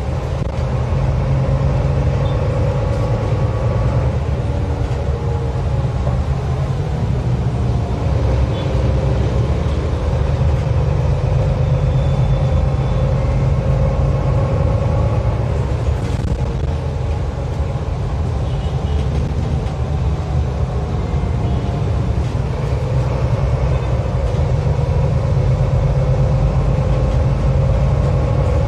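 Inside a city shuttle bus on the move: steady low engine and road rumble, with a faint whine that drifts up and down in pitch as the bus changes speed.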